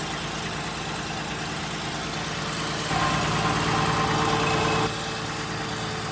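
2002 Acura MDX's 3.5-litre V6 idling steadily through a freshly fitted flex pipe and catalytic converter, the exhaust no longer leaking. A louder steady hum cuts in about three seconds in and stops abruptly about two seconds later.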